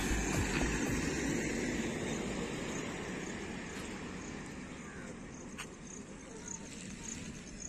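Steady vehicle and road noise with faint voices, growing gradually quieter.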